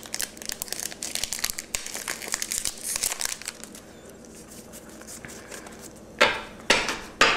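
Foil Pokémon booster pack wrapper crinkling as the cards are pulled out of it. After a quieter stretch come three sharp swishes near the end as the stack of cards is handled.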